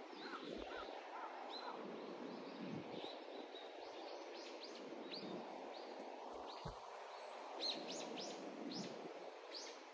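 Small birds chirping again and again, short quick notes that come thicker in the last few seconds, over a steady rushing hiss of steam venting from volcanic fumaroles.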